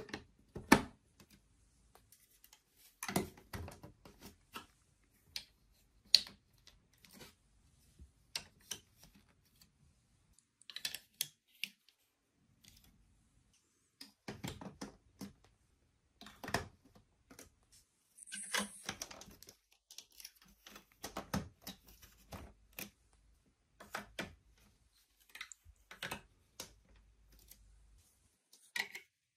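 Large plastic building blocks being handled and pressed together: irregular clicks and clacks of hard plastic pieces, some in quick clusters.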